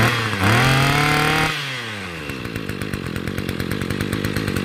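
Maruyama BC20T brush cutter's 20cc two-stroke engine revving up, holding high for about a second, then dropping back to a steady idle.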